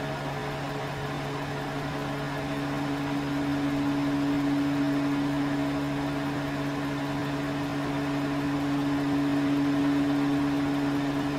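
Over-the-range microwave oven running on its popcorn setting: a steady electrical hum with a low drone.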